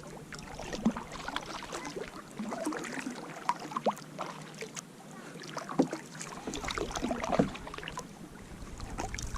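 Water splashing and lapping around a kayak, with scattered small knocks and clicks.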